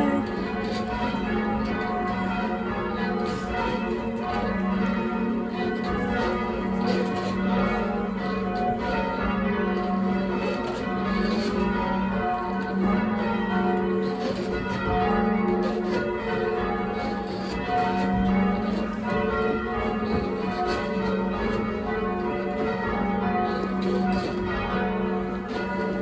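Change ringing on a ring of eight church bells (14 cwt tenor, tuned to F#, cast mostly by Taylor's), rung full circle. The bells strike in a steady, unbroken rhythm.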